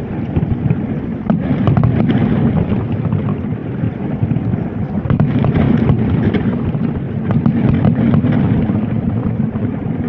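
Wind buffeting the microphone in a steady low rumble, with scattered sharp cracks or pops through it.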